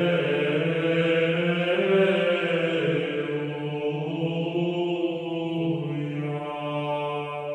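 Slow chanting by low voices: long held notes that change pitch only a few times and fade slightly near the end.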